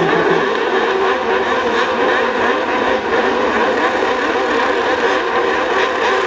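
Several junior autocross buggy engines running together on the start grid, revving, with their pitches rising and falling over one another.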